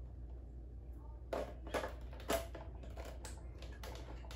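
Hands handling the plastic body of a Robosapien V2 robot: a few short plastic clicks and knocks, three of them close together in the middle, over a low steady hum.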